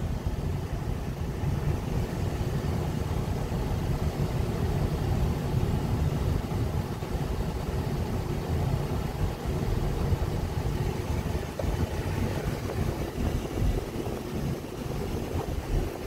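Steady low rumble of a vehicle's engine idling, heard from inside the cabin while it waits at a red light.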